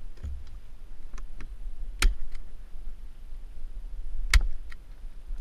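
Footsteps on gravel, with scattered small crunches and ticks over a steady low rumble. Two sharp cracks stand out, one about two seconds in and a louder one near the end.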